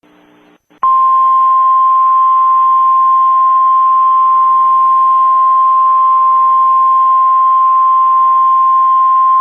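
NOAA Weather Radio warning alarm tone: a single steady, loud high tone of about 1050 Hz that starts about a second in and holds without a break over faint radio hiss. It is the alert that precedes a warning broadcast, here a flood warning.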